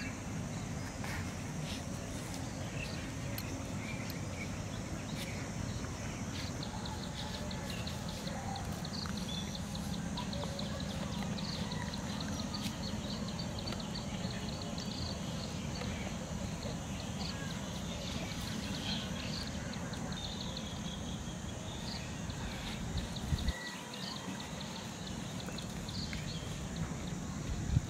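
Outdoor ambience: a steady low rumble with faint, rapid high chirping running over it. The rumble drops away suddenly about 23 seconds in.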